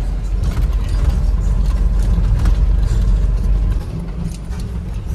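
Mahindra Bolero pickup mini truck driving slowly over a rough dirt track, heard from inside the cab. Low engine and road rumble with the body and cab fittings rattling and knocking; the rumble eases a little about four seconds in.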